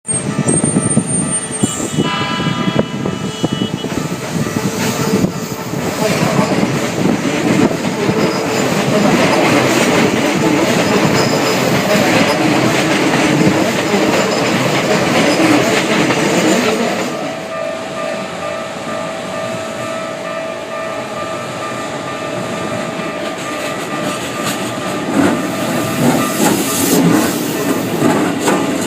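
Keikyu electric train passing over a level crossing, a loud rumble and rattle of wheels on the rails for about fifteen seconds. It then eases off, and the rumble builds again near the end.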